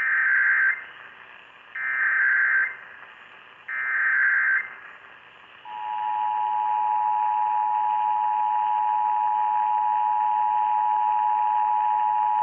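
Emergency Alert System tones heard over AM radio: three short bursts of SAME header data, each under a second, then the steady two-tone attention signal starting about six seconds in, marking the start of a Required Monthly Test. A faint hiss of radio reception runs underneath.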